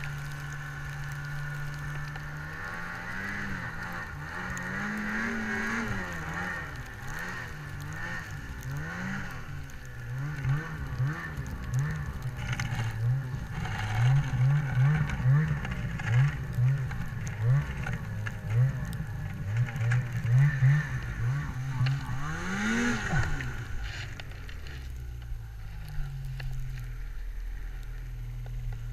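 Ski-Doo 800 two-stroke snowmobile engine revving up and down under way through deep snow. In the middle there is a run of rapid throttle surges, then a last rev rises and falls, and near the end it settles to a steady idle.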